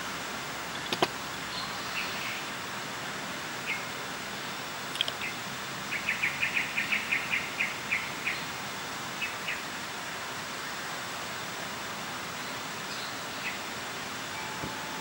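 Small bird chirping over a steady outdoor hiss: scattered short chirps, with a quick run of about a dozen chirps lasting some two seconds about six seconds in. Two sharp clicks, about one second and five seconds in.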